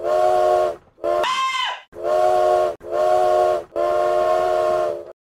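Train horn sounding five short blasts, each a chord of several steady tones; the second blast is a higher, different-sounding whistle. The last blast cuts off abruptly.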